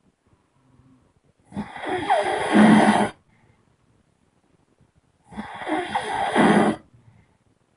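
A person snoring: two long, loud snores about four seconds apart, each lasting about a second and a half and getting louder toward its end, with silence between them.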